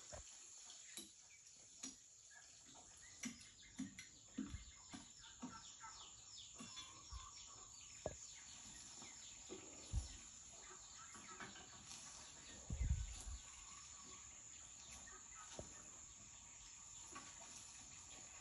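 A hoe chopping into soil, heard faintly as a string of dull thuds, about two a second for a few seconds and then scattered, the loudest about 13 seconds in. A steady high insect-like buzz runs under it, played back through a television speaker.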